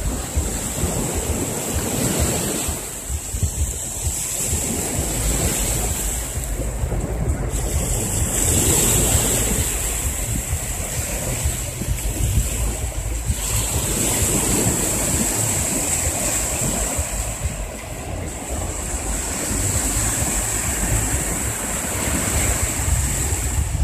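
Small sea waves washing onto a sandy beach, with wind buffeting the microphone in a low rumble and a steady high hiss.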